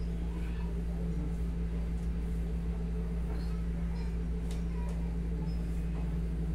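Steady low hum of a wall-mounted air conditioner, with a few faint light clicks.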